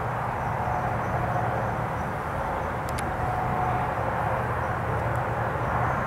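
Steady low background rumble with a few faint steady tones, and a single sharp click about halfway through.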